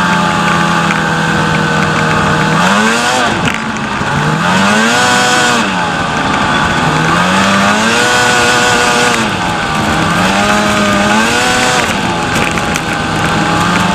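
Snowmobile engine running under way, its pitch rising and falling about four times as the throttle is opened and eased, then settling back to a steady pitch near the end.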